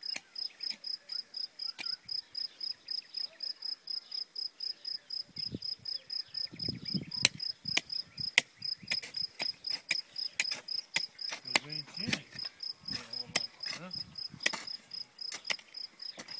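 Crickets chirping steadily, a high, even pulse repeating about four to five times a second. Sharp clicks come at irregular intervals, and a low rumble is heard twice in the middle.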